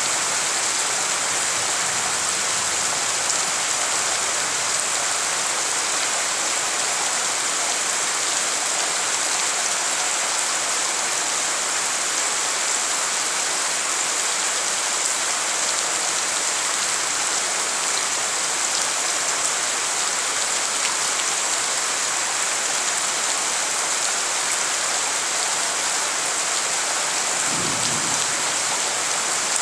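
Heavy rain pouring steadily onto a puddled dirt courtyard, an even hiss of drops striking standing water. A brief low rumble comes about two seconds before the end.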